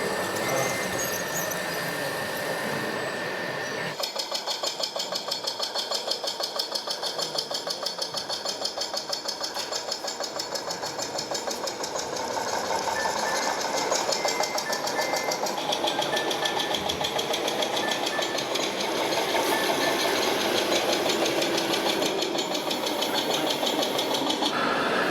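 Radio-controlled model vehicles running: small drive motors and gearing with a fast, even, rhythmic clatter that shifts in pitch and character several times.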